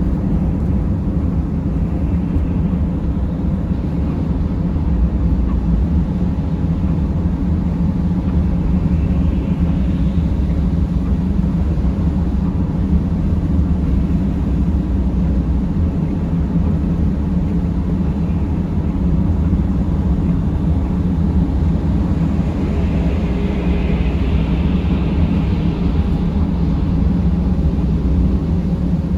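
Steady low rumble of a vehicle driving, engine and tyre noise running evenly, with a brief swell of hiss about three-quarters of the way through.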